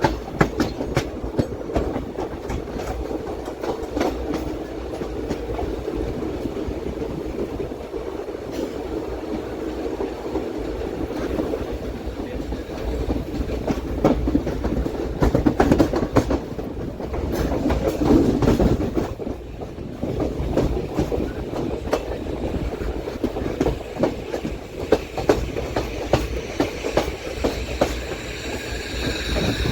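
Passenger train coaches rolling along the track, heard from on board: a steady rumble with a running series of wheel clicks over rail joints. A high squealing tone joins in near the end.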